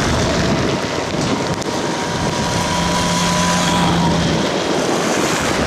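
Race escort motorcycles passing close by with engines running, over a steady rush of wind noise on the microphone.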